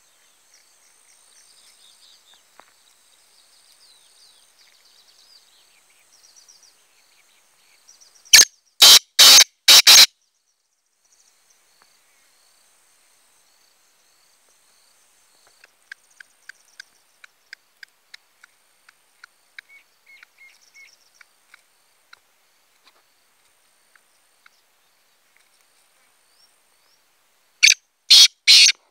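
Male black francolin calling: a loud, harsh call of four grating notes in about two seconds, given about eight seconds in and again near the end. Between the two calls comes a run of soft ticks, with faint high chirping in the background.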